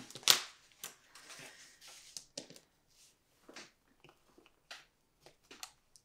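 Paper being torn and crumpled: a sharp snap about a third of a second in, then a run of irregular crinkles and rustles that thin out toward the end.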